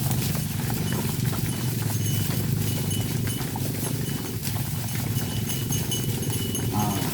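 Cattle hooves clopping on the ground as the herd walks, many irregular knocks over a steady low rumble.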